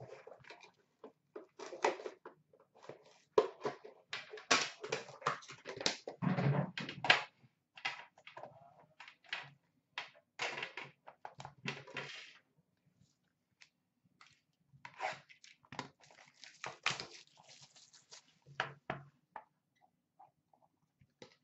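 Silver foil wrapper on a hockey card tin being torn and crinkled by hand as the tin is unwrapped and the inner card box lifted out, with light knocks of the box. Irregular crackling, with a short pause about two-thirds of the way through.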